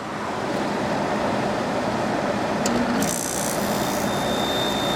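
Samsung 5,000 BTU window air conditioner running on high cool, its blower giving a steady rush of air. A click comes a little over halfway through, then a higher hiss, and near the end a thin steady high whine sets in.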